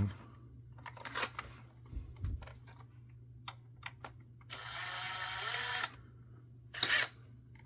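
Clicks and knocks of hard plastic being handled and pried at, with a noisy buzz of about a second and a half in the middle and a sharper click near the end.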